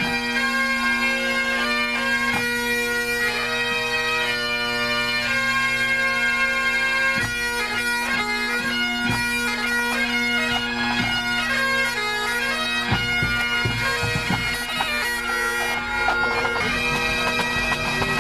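Great Highland bagpipes of a pipe band playing a tune together over their steady drones, the chanters moving through the melody notes during the tune-up.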